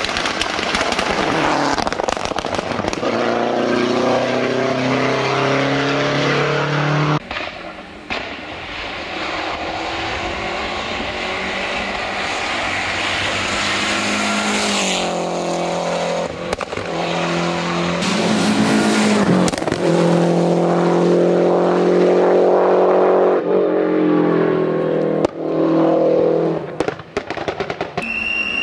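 Lancia Delta Integrale rally car's turbocharged four-cylinder engine at full throttle, its pitch rising through the revs and dropping at each gearchange, with a few sharp cracks.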